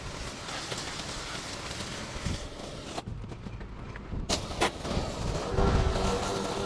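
Steady hiss of a rinse spray over a running motor. About three seconds in the hiss cuts off suddenly, then come two sharp clicks, and a steadier low engine-like rumble with a faint hum takes over.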